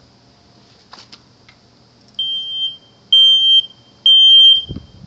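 Battery smoke detector sounding its alarm on test: a click about a second in, then three loud, high-pitched beeps, each about half a second long and evenly spaced, the first a little quieter than the other two.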